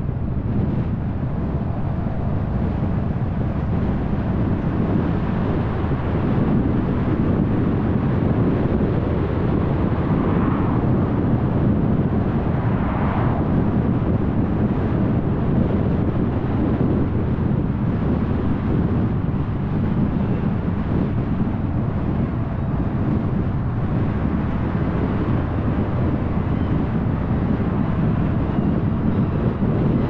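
A car driving along a suburban road: steady, low tyre and road noise with wind on the microphone. Two brief higher swells come about ten and thirteen seconds in.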